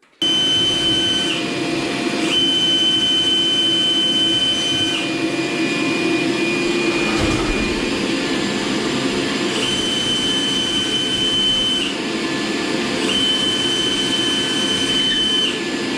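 Power drill running almost without a break while drilling 5/16-inch holes into drywall, its motor whine stepping up and down in pitch several times as the speed changes.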